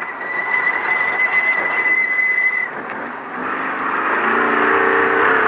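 Off-road race truck heard from inside the cab as it takes a hard right corner: a steady high squeal over the noise of tyres on dirt for the first half, then the engine picks up and revs climbing as the truck accelerates out of the turn.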